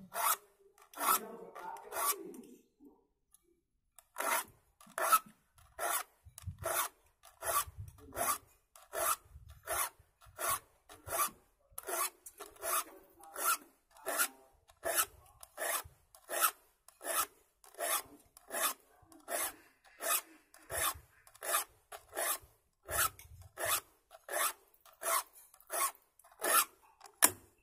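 Metal hand file scraping across the teeth of a handsaw in steady repeated strokes, a little over one a second, with a brief pause a few seconds in: the saw's teeth being sharpened.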